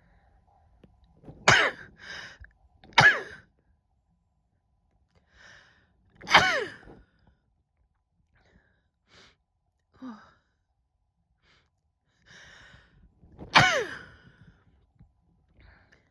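A woman's hay fever sneezes: four loud sneezes, each ending in a voiced cry that falls in pitch. Two come in quick succession about a second in, one about six seconds in and one near the end, with quick breaths between them.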